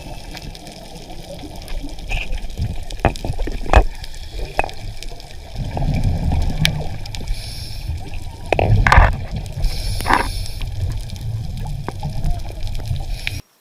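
Water splashing and sloshing, with scattered sharp knocks and a heavier stretch of noise in the second half.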